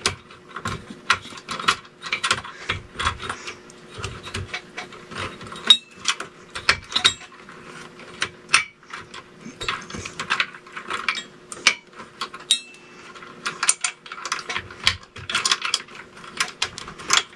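Irregular clicking, rattling and scraping of metal parts and wiring being handled as the ceiling fan's wires are pushed back into the electrical box, with a faint steady hum underneath.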